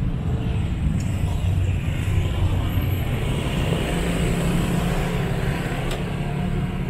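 City street traffic: motor vehicles running past, a steady low rumble.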